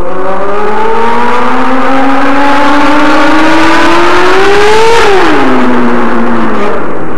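A motor whining, its pitch rising steadily for about five seconds, then dropping sharply and holding lower before cutting off near the end.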